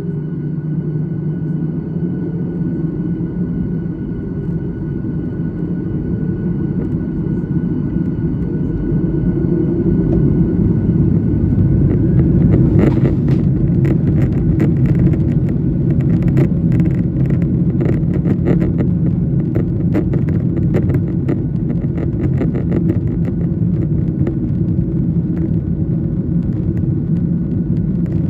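Jet airliner engines heard from inside the cabin during the take-off roll. They grow louder about ten seconds in as thrust comes up, then run as a steady loud rumble with a quick, irregular rattling and knocking from about twelve seconds on.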